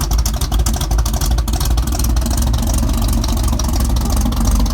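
A loud engine running steadily.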